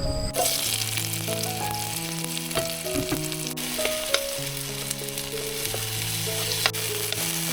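Food sizzling as it fries in a pan, a steady hiss that starts just after the beginning, with a few sharp clicks of stirring, under soft background music of held notes.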